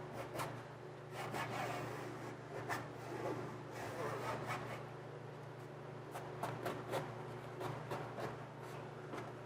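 Cloth headliner material being rubbed, pulled and tucked into the roof's edge groove by hand, a rustling scrape with scattered light clicks and taps.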